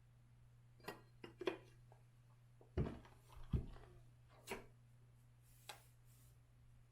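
Onewheel XR rail and its hardware being handled and fitted by hand: a scattering of light knocks and clicks, with two louder thumps about three seconds in, over a faint steady low hum.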